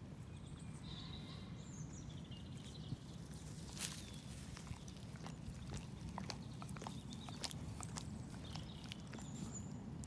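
Outdoor ambience with a few faint, short bird chirps over a steady low rumble, with scattered sharp clicks and rustles close to the microphone.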